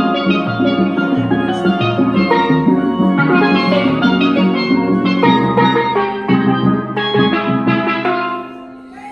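A steel band plays a tune on several steel pans, from deep bass pans to high lead pans, with quick struck notes. Near the end the band stops on a final chord that rings out and fades.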